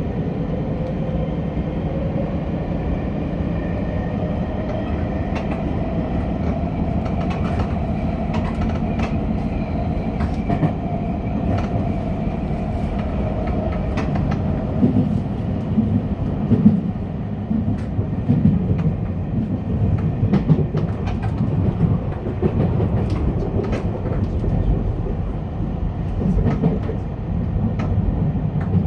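Tokyu 5050 series electric train heard from the driver's cab, its traction motors whining up in pitch as it accelerates and then easing off. In the second half the wheels knock and clatter over rail joints and points.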